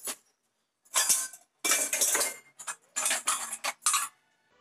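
Stainless steel bowls and plates clattering as they are set and stacked on a wire dish rack: several bursts of clanks about a second in, each ringing briefly.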